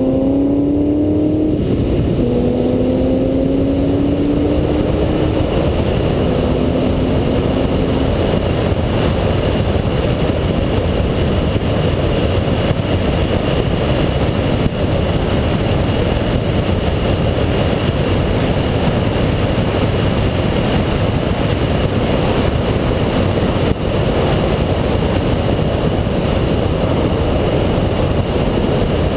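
Ford Shelby GT500's supercharged 5.4-litre V8 accelerating out of a corner, its rising engine note broken by upshifts about two seconds and about six seconds in. After that a steady, heavy rush of wind and road noise at speed covers it.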